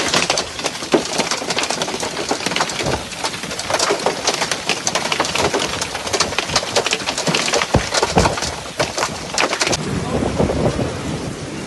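Hailstones pelting down in a dense clatter of sharp ticks and knocks. About ten seconds in, the strikes thin out into a steadier hiss of rain.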